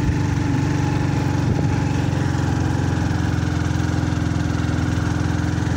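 An engine idling steadily close by, a continuous low drone with a fast, even pulse that does not change.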